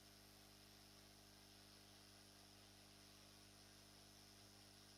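Near silence: a faint steady hiss with a low mains-type hum underneath.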